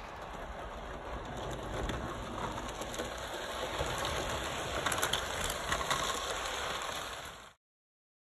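Bachmann HO-scale Gordon model locomotive running along the track: a steady whirring hiss of its motor and wheels, with a few light clicks. It cuts off suddenly near the end.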